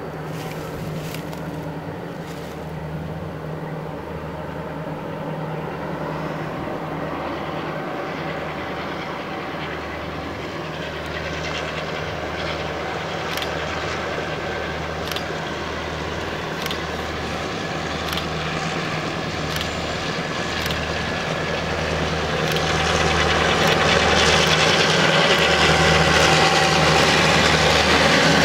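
Three CC202 diesel-electric locomotives hauling a long coal train approach, their engines' steady drone growing louder and becoming loudest in the last few seconds as they come close. A scattering of sharp clicks is heard in the second half.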